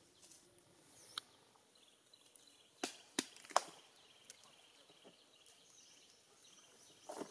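Scattered sharp clicks and snaps of dry wood as a baby macaque picks at and handles a dry stick, with the three loudest close together about three seconds in.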